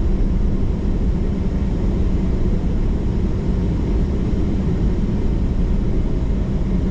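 A car on the move: engine and road noise making a steady low rumble.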